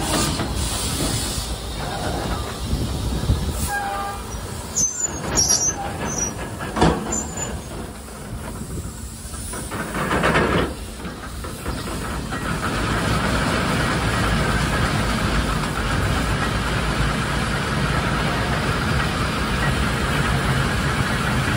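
Bucyrus-Erie 50-B steam shovel at work: steam engine and geared hoist drum running with hissing steam, metal clanks and a few brief squeals. A surge of hiss comes about ten seconds in, then a steadier hiss with the machinery through the second half as the dipper hoists its load of dirt.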